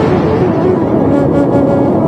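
Soft music, a slow melody of held notes stepping up and down, over the steady rush of sea waves.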